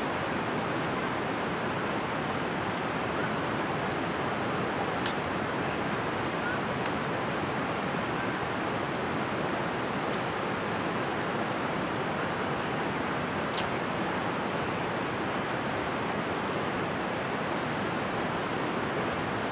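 Steady rush of running creek water, an even noise with no rhythm. Two faint clicks stand out, about five seconds in and again near fourteen seconds.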